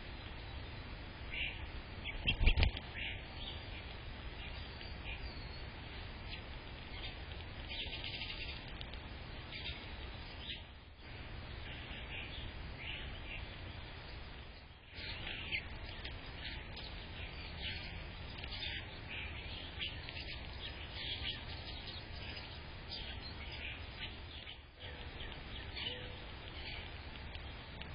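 Small birds chirping repeatedly in short high notes, with a steady low rumble underneath. A single loud knock sounds a little over two seconds in.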